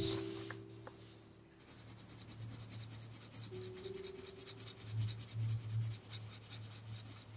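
Coloured pencil shading on smooth paper in quick, even back-and-forth strokes, starting about a second and a half in. The paper's tooth is worn down by earlier ink.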